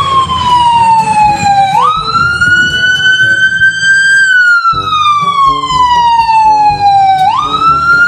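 Electronic police/ambulance siren wailing, as from a toy emergency car: a tone that falls slowly over about three seconds, then jumps quickly back up and climbs before falling again. The cycle repeats twice.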